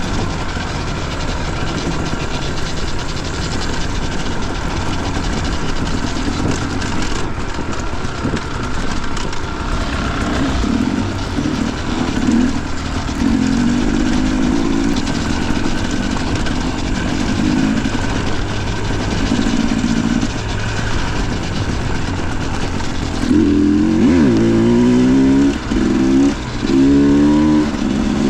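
Dirt bike engine running under load on a trail, its pitch rising and falling with the throttle. Near the end it revs up several times in quick succession, with short let-offs between.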